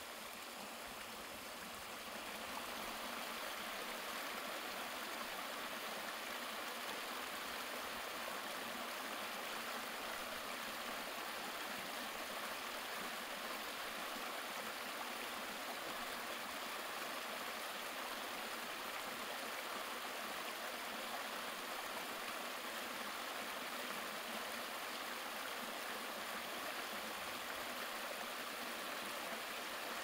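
Small woodland creek running over rocks in little cascades: a steady rush of water that grows a little louder about two seconds in.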